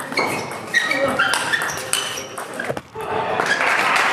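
Table tennis rally in a large hall: the ball clicks off bats and table in quick succession, with sharp shoe squeaks on the court floor. The rally ends about two and a half seconds in, and spectators applaud from about three seconds.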